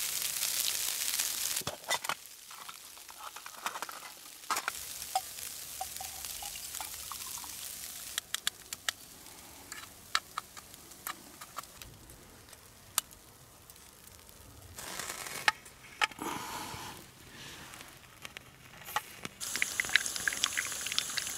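A steady hiss opens the stretch. Then come scattered metal clicks and clinks as a portable espresso maker is loaded with ground coffee and put together. Near the end there is a hissing, sputtering pour as espresso is pressed out of its spout.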